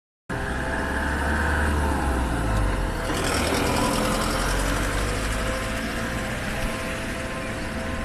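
Japanese railway level crossing warning bell ringing steadily over a low rumble, with the noise growing brighter about three seconds in.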